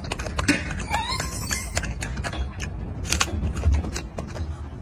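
Golden snub-nosed monkey biting and chewing a crisp apple: irregular sharp crunching clicks over a low rumble.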